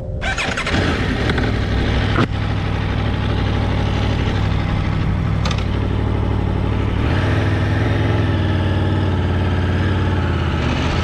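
Aprilia Tuono V4's V4 engine pulling away from a stop and running steadily through a turn, ridden gently to break in the new engine. There is a short click about two seconds in, and the engine note changes about seven seconds in.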